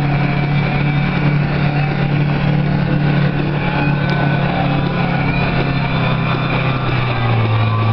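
Jet ski engine running steadily at slow no-wake speed, a low even hum whose pitch drops a step about seven seconds in.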